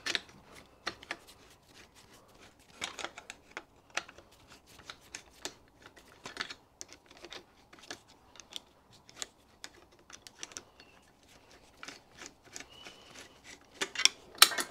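Screwdriver blade clicking and scraping against a small screw as it is worked into the brass condensate catch tank of a Stuart steam engine: irregular light metallic clicks, with a louder cluster near the end.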